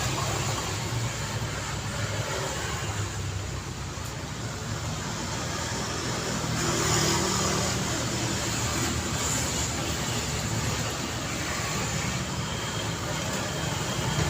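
Street traffic: cars driving past in a steady wash of engine and tyre noise, one vehicle swelling louder as it passes about seven seconds in.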